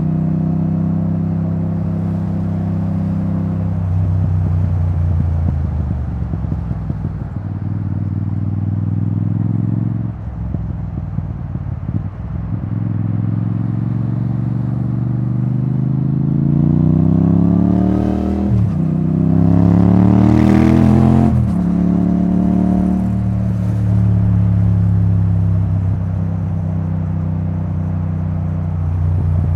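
Yamaha XSR700's CP2 689 cc parallel-twin engine breathing through a debaffled Akrapovic titanium exhaust, cruising at a steady pace. The throttle eases off briefly around ten seconds in. From about sixteen seconds the revs climb twice, each time dropping sharply as the rider shifts up, then the engine settles back to a steady cruise.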